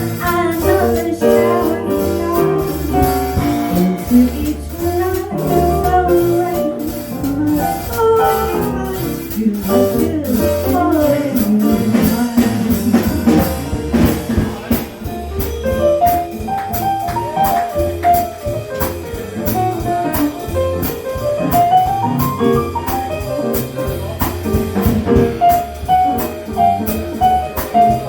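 A small swing jazz band plays live, with no vocal: a tenor saxophone leads over piano, bass and drums, and the cymbal beat is steady.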